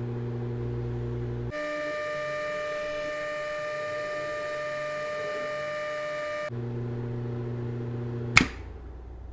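Cabinet cooling fan running with a steady mains hum, which for a few seconds in the middle is replaced by a higher-pitched hum. Near the end there is a sharp click and the fan hum stops: the contactor drops out as the temperature controller reaches its 27 °C cut-off.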